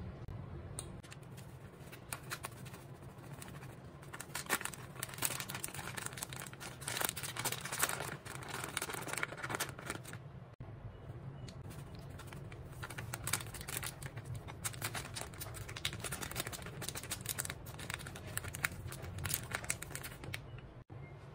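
Plastic spice packets crinkling and rustling as they are handled and tipped out over a mixing bowl. The crackling is dense and irregular, with a short break a little past halfway, over a steady low hum.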